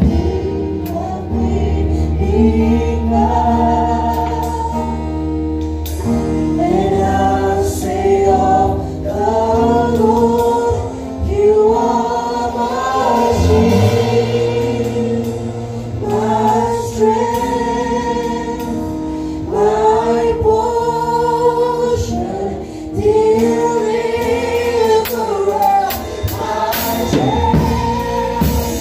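Live gospel worship music: voices singing a melody together over a drum kit played close by, with drum and cymbal strokes and a steady low bass beneath.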